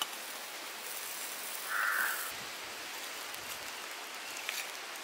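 Steady outdoor hiss with one brief bird call about two seconds in. Near the end come a few light clicks and scrapes of a steel ladle in hot ash and embers.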